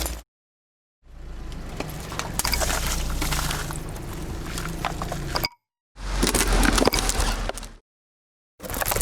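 Car tyres rolling over and crushing crunchy objects: cracking and crackling over a low vehicle rumble. The sound comes in three short stretches, each cut off abruptly to dead silence.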